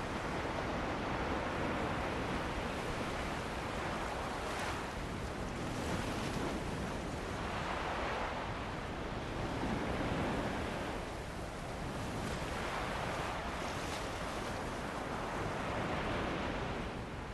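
Sea waves washing onto a beach, with wind blowing over the shore. The rushing noise is continuous and swells and eases every few seconds.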